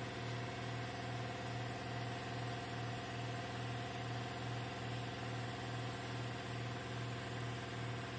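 A steady low mechanical hum from a running machine, with a slight regular pulse a few times a second.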